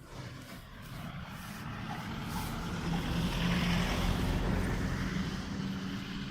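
A motor vehicle's engine running, growing steadily louder to a peak a little past the middle and then easing off.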